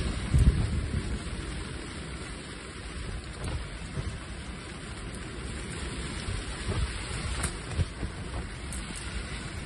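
Rain on the fabric of a beach fishing shelter: a steady hiss with low rumbling and a few faint ticks. A dull thump about half a second in is the loudest moment.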